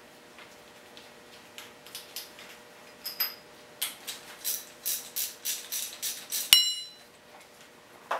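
Ratchet wrench clicking about four times a second as the rocker arm retaining bolts are loosened, then a sharp metal clink that rings briefly. A single knock comes right at the end.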